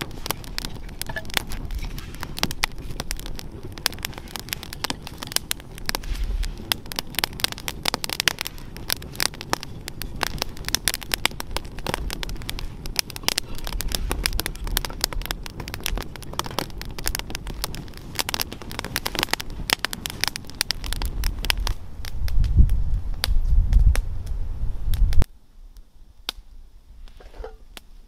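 Campfire of split sticks crackling and popping steadily, with a low rumble rising under it from about three-quarters of the way in. The sound drops off suddenly a few seconds before the end, leaving only faint crackles.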